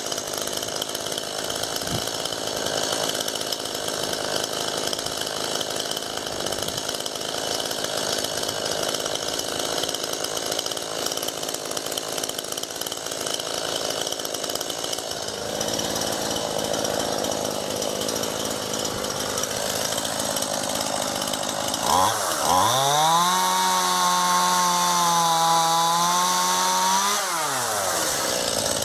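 Two-stroke chainsaw running at low revs, then opened up to full throttle about three-quarters of the way through, held high for about five seconds, and dropped back before starting to rev up again at the very end.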